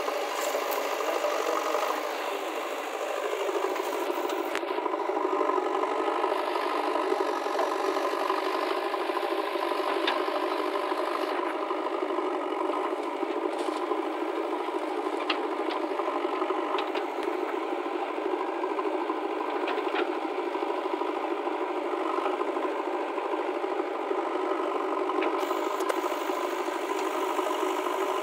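Diesel engine of a JCB 3DX backhoe loader running steadily as it digs and dumps soil, with scattered clatters and knocks of soil and stones landing in a tractor trolley.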